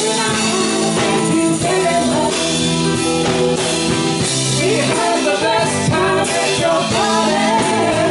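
Live band playing a song, with singers at the microphones over keyboard and the rest of the band.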